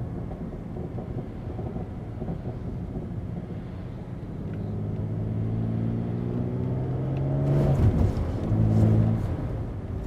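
BMW E90 330i's 3.0-litre N52 straight-six, with a BMW Performance rear silencer and midpipe delete, heard from inside the cabin: a low steady drone, then from about four seconds in the engine pulls under acceleration with its pitch rising, until a gear change near eight seconds breaks it off briefly before it carries on.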